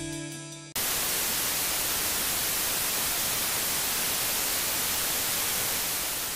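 The last electric-guitar chord of the song rings out and cuts off abruptly under a second in, replaced by a steady, loud hiss of television static (white noise) that begins to fade near the end.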